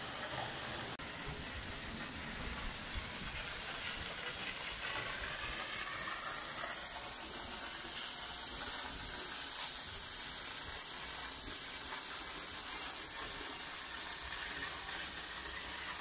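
Steady rushing hiss of falling water from a waterfall, swelling a little louder for a few seconds in the middle.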